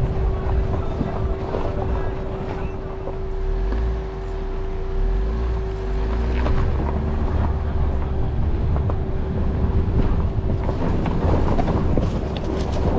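Ford Bronco Sport driving slowly over a rough dirt trail: the engine and drivetrain run under a heavy low rumble with a steady hum, while tyres crunch over stones and ruts. Wind buffets the microphone.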